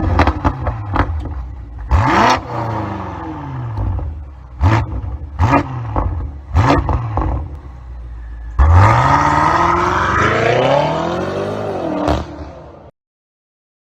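BMW X6M's twin-turbo V8 with a Fi Exhaust valvetronic system, free-revving at a standstill. It gives a run of quick throttle blips, each rising and falling sharply, then one longer rev that climbs and drops back before the sound cuts off suddenly.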